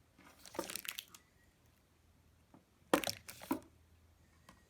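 Crackling, crinkling handling noise in two short bursts, about a second in and again about three seconds in.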